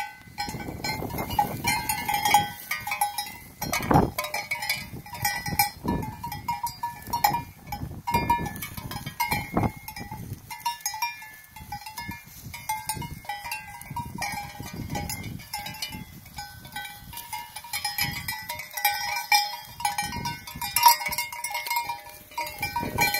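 A flock of sheep wearing neck bells moving about, the bells clanking again and again at uneven intervals.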